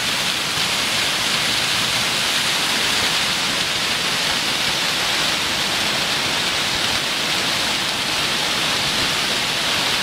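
Waterfall rushing: a steady, unbroken hiss of falling water splashing down a rock face.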